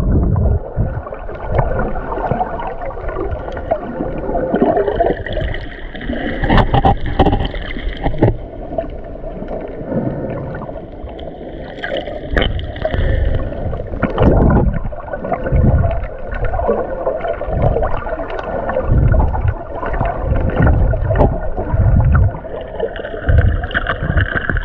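Muffled underwater sound from a camera held below the surface while snorkeling: water sloshing and gurgling, with irregular low thuds.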